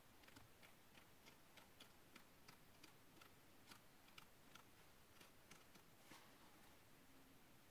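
Pages of a paperback novel slipping off the thumb one after another as it is leafed through, making faint, quick ticks, about three a second.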